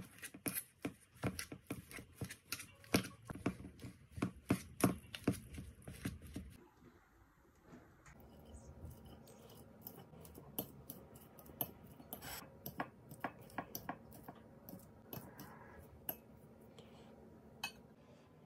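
A metal potato masher pressing boiled potatoes against a stainless steel bowl, clinking about two or three times a second. About six seconds in it gives way to lighter, scattered taps and scrapes of a spoon and fork chopping boiled eggs in a glass bowl.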